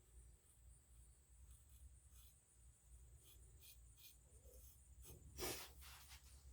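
Near silence: faint room hum with a few soft clicks and one brief, slightly louder rustle about five seconds in.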